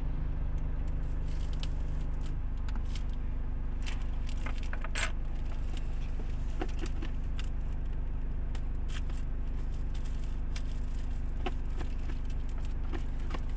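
Cellophane shrink wrap on a phone box being slit with a bare cutter blade and peeled off, giving scattered crinkles, scrapes and sharp crackles, the sharpest about five seconds in. A steady low hum runs underneath.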